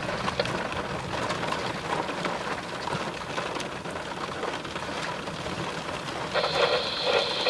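Steady rain falling, with many small drop ticks. A steady high tone comes in near the end.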